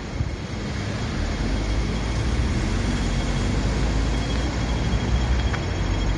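City street traffic: a steady low drone of vehicle engines and tyres on the road.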